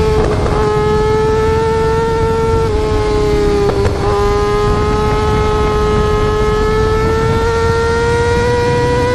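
Yamaha R6 sportbike inline-four engine and exhaust held at very high revs. The pitch dips slightly about two-thirds of the way in and again near the middle, with a short crackle, then climbs slowly.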